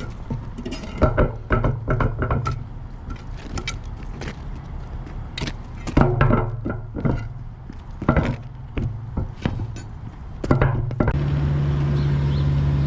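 Repeated metallic clanks, knocks and rattles, with a diesel engine running low in between, then settling into a steady drone near the end.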